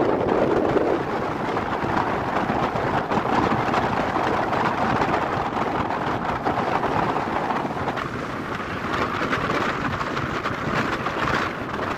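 Steady rushing background noise with no distinct events; its tone shifts slightly brighter about eight seconds in.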